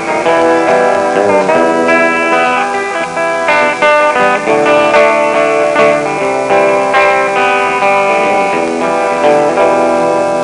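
Instrumental break in a live country song: strummed acoustic guitar with electric guitar and steel guitar lead lines, some notes sliding in pitch.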